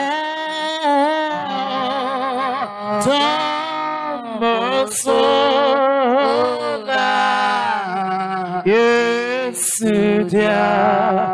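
Men's and women's voices singing a slow church chorus, long held notes with a wavering pitch.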